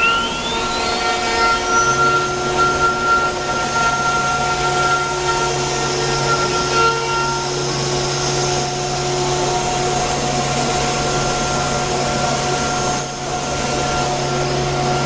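CNC router's electric spindle and bit cutting a curved wooden part: a steady mechanical whine made of several held tones, over the rasp of the bit in the wood. A whine rises in pitch over the first two seconds, and a low hum joins about two seconds in.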